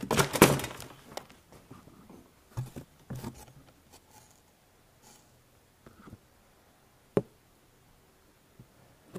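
Paper and cardboard handling: an instruction sheet is slid out of a cardboard box and rustled, loudest in the first second, followed by a few faint rustles and a single sharp click about seven seconds in.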